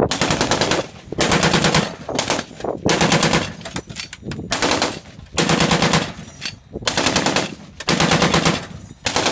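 .50-calibre M2 Browning heavy machine gun firing about eight short bursts of rapid shots, each under a second long, with brief pauses between them.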